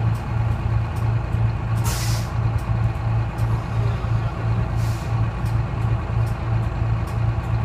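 Detroit Diesel 6V71 two-stroke diesel of a 1970-71 GMC "New Look" bus running with a steady pulsing drone. Two short hisses of compressed air come from the bus's air system, about two seconds in and near five seconds.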